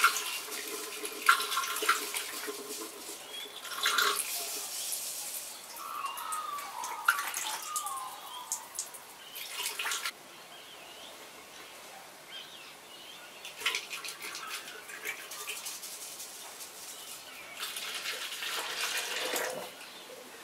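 Liquid head-gasket sealer poured slowly from a plastic bottle into a car radiator's filler neck: trickling liquid in uneven spells, with the bottle tapped now and then to work the mix out. It goes quieter for a few seconds about halfway through, then pours again near the end.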